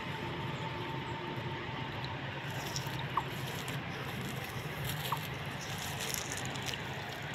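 Wet nylon cast net being handled and pulled over a concrete riverbank: a low steady rustle with three short sharp clicks, about a second or two apart, of its chain sinkers knocking on the concrete.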